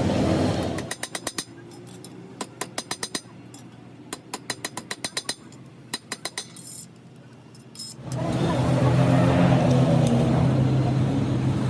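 Workshop machinery: short runs of rapid sharp taps, five to eight at a time, then a machine's steady drone with a low hum starting about eight seconds in.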